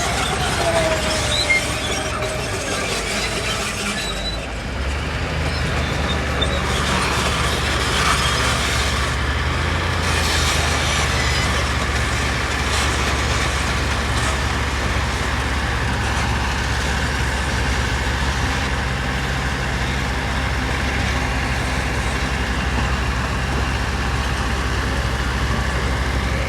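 Diesel engine of heavy construction machinery running steadily under work, with a short falling whine in the first couple of seconds and the engine note firming up about four seconds in.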